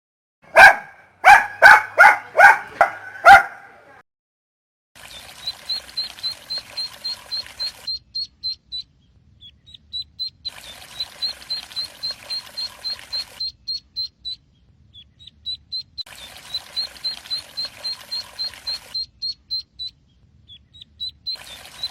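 A puppy barking six times in quick succession, sharp and loud. Then a rapid series of high, short chirps, about six a second, comes in repeated runs of a few seconds.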